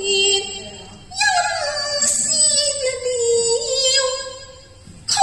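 A high female voice singing Cantonese opera (yuequ) in long, wavering held notes. One phrase ends just after the start and another begins about a second in, fading away near the end.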